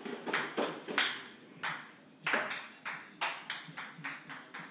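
Plastic push toys rolling over a hardwood floor, making a string of sharp, bright clacks. The clacks are irregular at first, then come faster, about three or four a second, after about two seconds.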